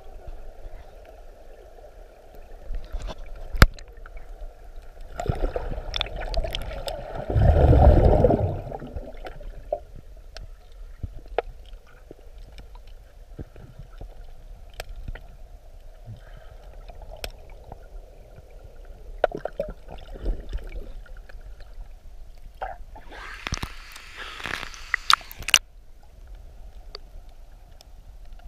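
Muffled underwater sound picked up through an action camera's waterproof case, submerged in a waterfall pool: a steady dull wash of moving water with scattered clicks and knocks. About eight seconds in there is a loud low rumble. From about twenty-three seconds in there is a splashy, hissing burst lasting a couple of seconds.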